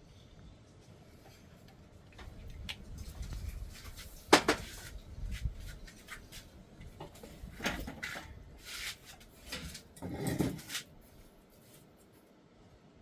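Hand work on aluminum crab-scoop parts: scattered clicks and knocks of metal tubing being handled, with one sharp knock about four seconds in and a few scraping rattles later on.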